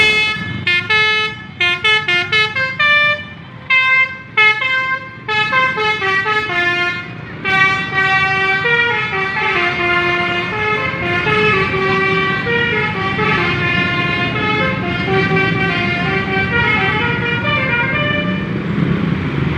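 Telolet musical horn playing a tune. For the first seven or so seconds it sounds in short toots with gaps, then it plays a longer unbroken melody, over a steady low vehicle rumble.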